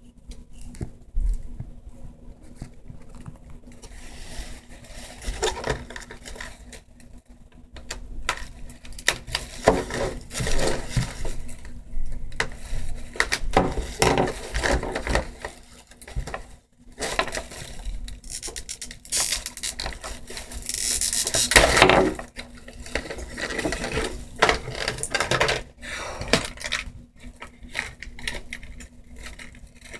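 Small items from an acrylic nail kit being handled: clicks, taps and rustling throughout, with a longer, louder scraping or rustling stretch about twenty seconds in.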